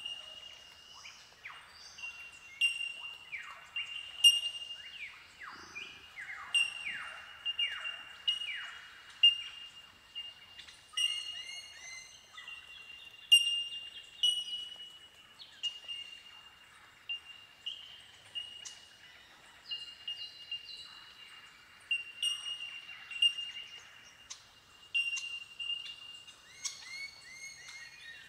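A colony of Bell Miners (bellbirds) keeping up their incessant ringing 'tink' calls, many short bell-like notes overlapping into a windchime-like chorus over a steady high ring. Some downward-sliding notes come in the first third.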